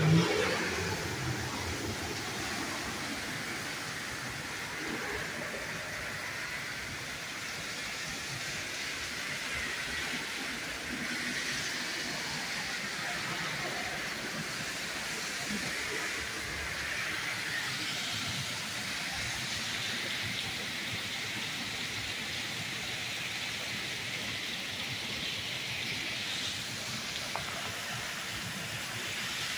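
Torrential rain pouring down in a steady hiss that swells and eases slightly in waves. A brief knock sounds right at the start.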